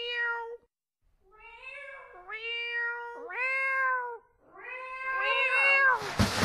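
A string of about five cat meows, each sliding up at the start and then held. Near the end the brass band comes in.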